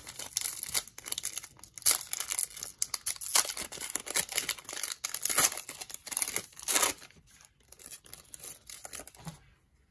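A foil trading-card pack (2020-21 Panini Revolution basketball) being torn open and crinkled by hand: a rapid run of crackling rips and crinkles that thins out to quieter handling about seven seconds in.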